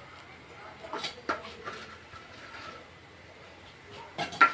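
Steel spoon scraping and tapping against a steel plate while roasted flour is mixed with water, with a couple of taps about a second in and a louder ringing clink of steel utensils near the end.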